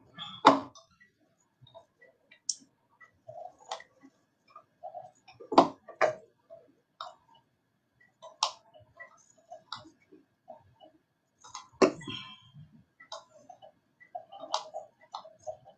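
Irregular clicks and taps from a computer keyboard and mouse in use, with three louder knocks spread through.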